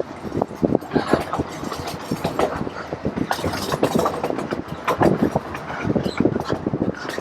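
Miniature railroad train in motion: the passenger car rattles and clatters along the track, with frequent irregular knocks from the wheels and couplings.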